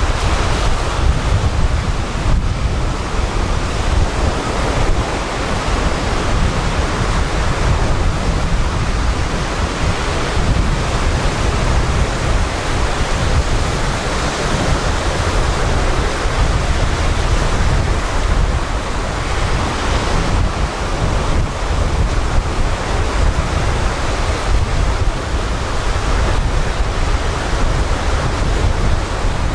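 Sea waves breaking offshore and washing up over a pebbly sand beach in a continuous surf, with wind buffeting the microphone as a steady low rumble underneath.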